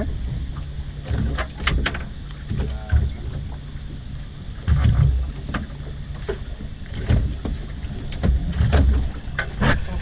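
Wind rumbling on the microphone aboard a small boat, with scattered knocks and rustling as a landing net holding a kingfish is handled on deck and the fish is lifted out.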